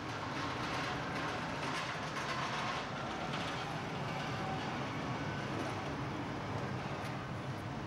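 Electric pedestrian pallet truck being driven across a concrete warehouse floor: a steady rumble of the truck's motor and rolling wheels.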